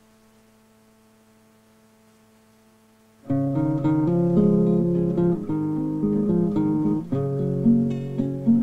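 A faint held note from recorded music fades almost to silence. About three seconds in, a plucked string instrument starts a folk-song introduction, playing a run of separate notes over a low bass.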